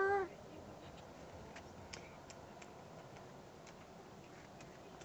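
A girl's voice ends a drawn-out word right at the start. Then comes a quiet pause with faint, irregular light ticks and clicks.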